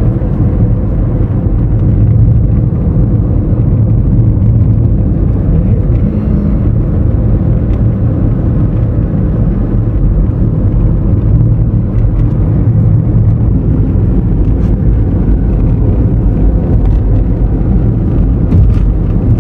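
Steady rumble of a car driving: engine and tyre noise heard from inside the cabin.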